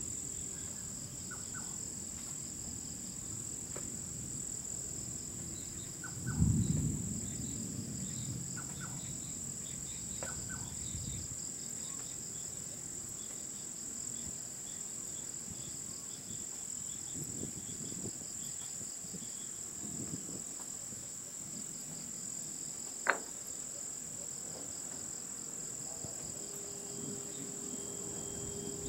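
A low rumble of thunder rises sharply about six seconds in and rolls on for several seconds, over a steady high, pulsing chorus of insects. A single sharp click comes about two-thirds of the way through.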